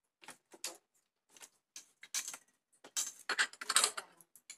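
Cups and plates being set down and moved on the shelves of a wooden kitchen cabinet: a run of short clinks and knocks, busiest about three to four seconds in.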